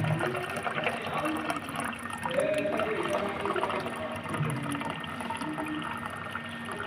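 Water running from a water dispenser's push-lever tap into a glass as it fills.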